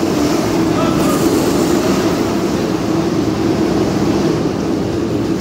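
Go-karts running laps on an indoor track: a steady, loud mechanical drone.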